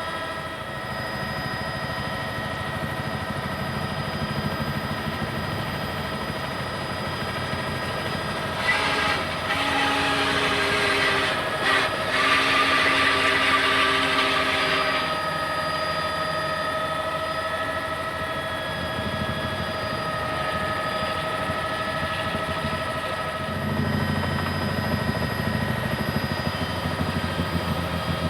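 Helicopter turbine whine and rotor noise, steady throughout. About a third of the way in, a louder hiss with two low tones sounds for about six seconds, broken briefly partway through.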